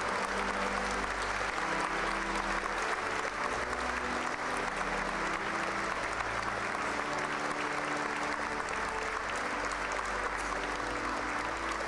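A congregation applauding steadily in a large cathedral, with music of long held low notes underneath.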